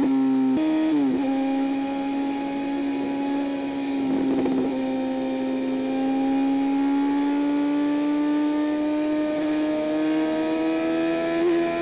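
Yamaha FZ1 sport motorcycle's inline-four engine running under way. The revs change briefly about a second in, then hold steady and slowly climb over the last few seconds.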